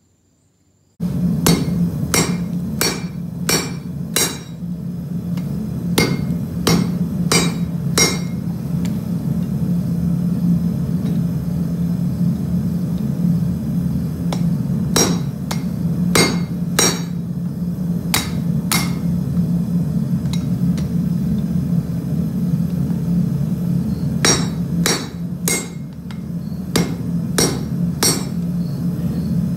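Hand hammer striking red-hot steel held in tongs on an anvil, starting about a second in. The blows come in several quick bursts with pauses between them, over a steady low hum.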